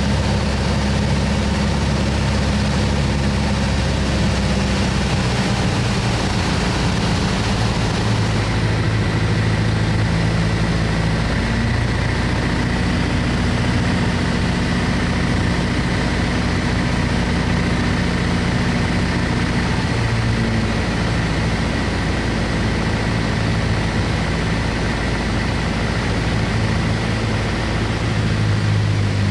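A single-engine piston airplane's engine and propeller drone steadily, heard inside the cockpit. The engine note shifts several times as power is adjusted on the approach to landing.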